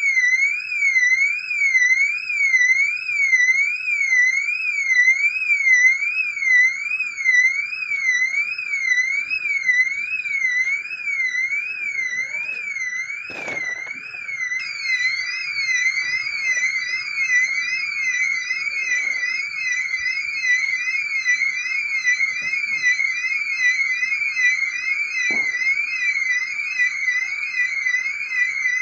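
Solar-powered security alarm's electronic siren sounding continuously, a shrill tone warbling rapidly up and down, the warble speeding up about halfway through. Two brief knocks are heard, one midway and one near the end.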